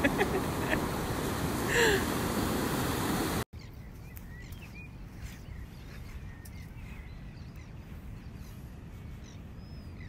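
Steady rush of breaking surf with one brief cry about two seconds in, then a sudden cut to a much quieter lagoon where birds give scattered faint chirps.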